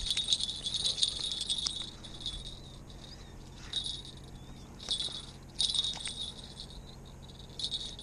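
Small bite-alarm bell on a fishing rod jingling in irregular bursts as the rod is moved about after landing a sucker.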